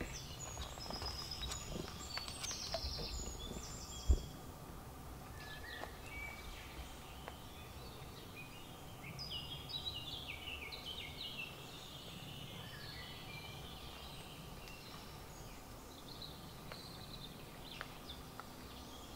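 Songbirds singing in the trees, with high trilled phrases in the first four seconds and again about ten seconds in, over a steady low background noise. One sharp knock about four seconds in.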